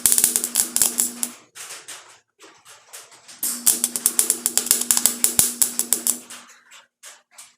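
Welding arc crackling on rusted car-body sheet steel in two short bursts, the first about a second and a half and the second about three seconds, each with a steady hum underneath, as rust pinholes are filled against a copper backer.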